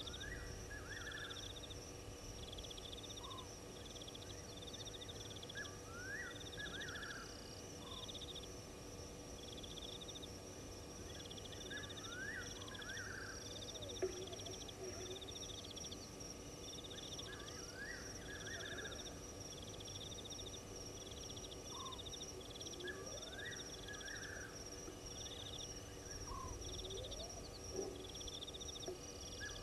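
Night chorus of crickets and other insects: a steady high trill with short chirps repeating about once a second, and a group of rising calls coming back every five or six seconds. A single sharp click about halfway through.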